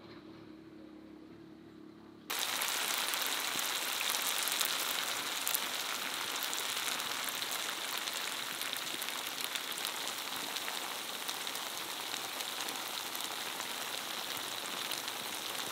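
Food frying in hot oil: a dense, steady crackling sizzle that starts abruptly about two seconds in, after a faint low hum.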